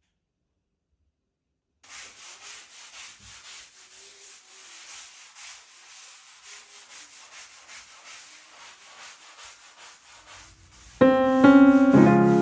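Repeated rubbing strokes with a hissy, scratchy texture, about two a second. Near the end, louder piano music comes in.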